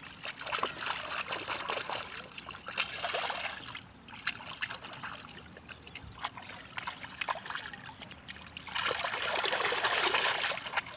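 Shallow water splashing and sloshing as bare hands grab a thrashing fish, with many small splashes throughout. The loudest burst of splashing comes near the end.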